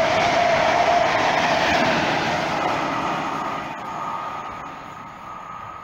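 A train running past, loud at first and then fading steadily as it draws away. A thin steady whine carries on over the last two seconds.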